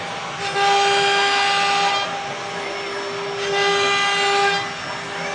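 CNC wood carving router's spindle running with a steady high whine and a hiss. It grows louder twice, for about a second and a half each time, as the bit works through the wood.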